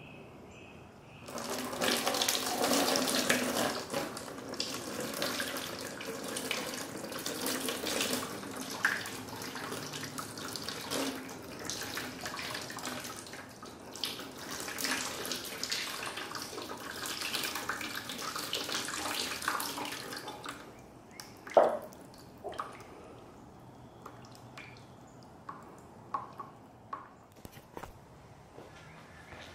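Water poured from a glass measuring cup into the pocket of a new leather softball glove, splashing and running off into a plastic bucket, the soaking step of a hot-water glove break-in; it starts about a second in and lasts about twenty seconds. Then one sharp knock and a few light taps.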